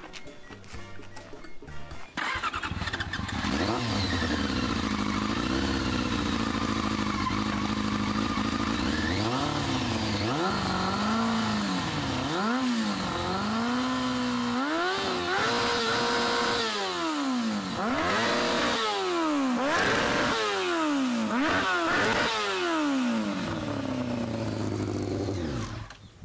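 After a couple of seconds of background music, a Yamaha R1's inline-four engine comes in abruptly through its Yoshimura RS-3 slip-on muffler, running with slow swells in pitch, then revved in repeated quick blips that rise and fall. It dies away near the end.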